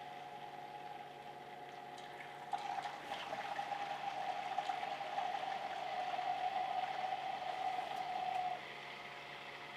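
PC water-cooling loop running, its pump giving a steady hum. From about two and a half seconds in, coolant gurgles and splashes through the loop, then cuts off sharply near the end: air bubbles are being cycled out of the freshly filled loop.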